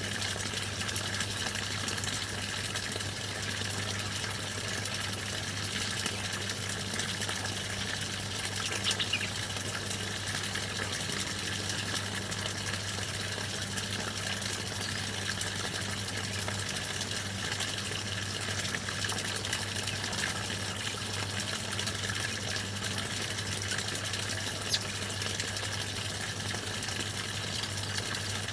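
Steady flow of running water under a constant low hum, with a few faint bird chirps and one brief click near the end.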